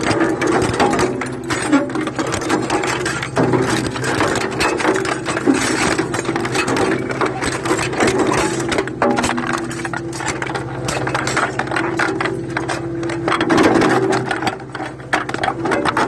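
Stihl two-stroke chainsaw engine running steadily with a fast rattle, its pitch wandering slightly as the speed changes.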